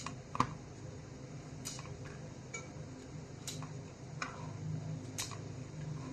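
Kitchen knife cutting broccoli florets on a flexible cutting mat: about seven sharp, irregular taps roughly a second apart as the blade goes through the stems and hits the mat, the loudest just after the start.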